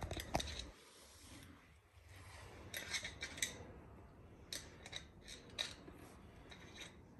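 Faint rustling and scattered light clicks of a threaded black iron gas pipe being handled and turned in the hands.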